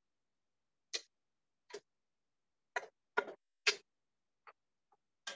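Irregular clicks and light knocks of a kitchen utensil against cookware, about eight short strikes, the loudest a little past the middle.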